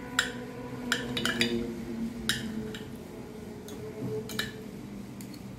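Knife and fork clinking and scraping against a ceramic plate while cutting a stuffed beef roll, with several sharp, separate clinks, over a faint steady hum that fades out about halfway.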